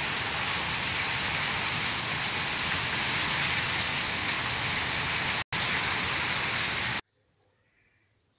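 Heavy storm rain pouring down as a loud, steady hiss, with a split-second break about five and a half seconds in; it cuts off abruptly about seven seconds in.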